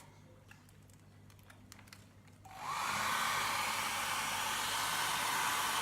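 Handheld hair dryer with a bonnet hood's hose taped to its nozzle, switched on about halfway through and then blowing steadily with a constant whirr. A few faint handling clicks come before it starts.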